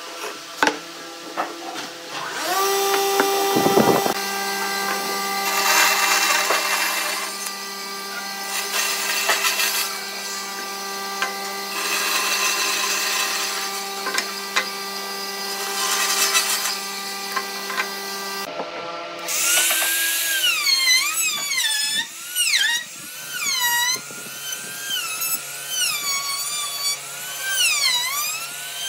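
Bandsaw running with a steady hum, its blade cutting a curved line through a wooden board in several passes, each raising a rushing noise. After a cut about two-thirds of the way in, a handheld trim router runs along the board's edge, its whine dipping and rising in pitch as it bites into the wood.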